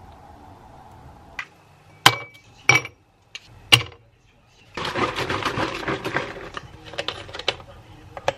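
Ice cubes dropped into a glass tumbler one at a time, four ringing clinks, followed by a longer crackling rattle of a plastic ice-cube tray being handled. A few lighter knocks come near the end.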